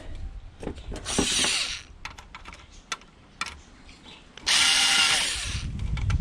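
Power screwdriver running in two short bursts, a brief one about a second in and a longer, louder one past the middle, undoing screws on a heater's casing. Small clicks and taps of handling fall between the bursts.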